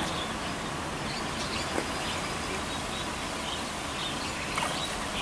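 Outdoor ambience: a steady background hiss with scattered faint bird chirps and a couple of small clicks.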